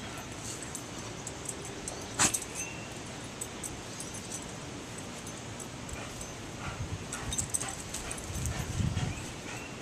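A greyhound in a dirt pit: scattered light scrapes and clicks of paws in the soil, one sharp click about two seconds in, and a couple of short, high whimpers.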